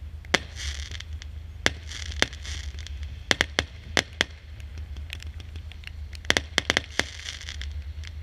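Consumer fireworks going off: sharp bangs at uneven intervals, coming in quick clusters around the middle and again near the end, with crackling between them.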